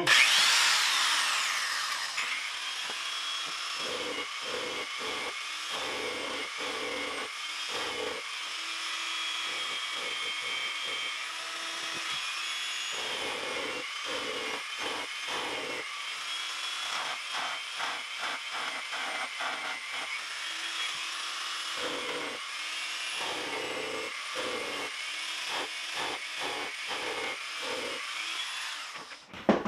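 Electric power file (a narrow-belt sander) run at its slowest speed, sanding a groove along a crack in an acrylic shower pan. It spins up at the start with a falling whine, then runs with a steady high whine and intermittent lower rasping as the belt bites into the plastic, and switches off near the end.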